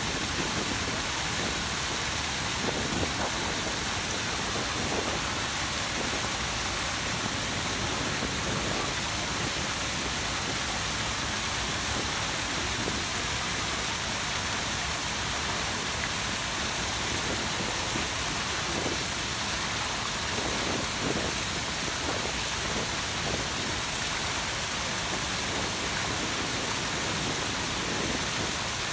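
Steady rush and splash of the Grand Cascade fountains at Peterhof: many water jets, including the tall central Samson jet, falling into the pool.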